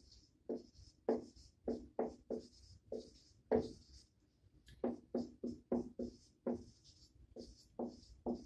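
Dry-erase marker squeaking on a whiteboard as figures and letters are written, in a quick run of short, separate strokes, about two or three a second.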